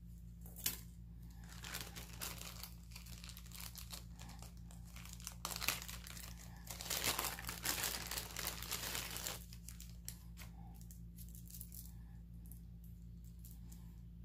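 Packaging crinkling and rustling as the next piece of jewelry is unwrapped by hand, busiest and loudest from about five to nine seconds in, then dying down to light, scattered rustles.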